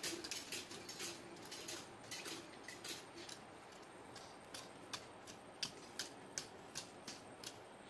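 Faint, irregular clicks and taps, about two or three a second, over a quiet background.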